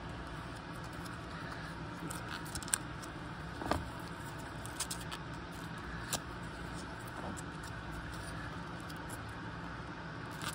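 Small brake-caliper parts being handled in gloved hands at a workbench: a few light, scattered clicks and rustles over a steady low background hum.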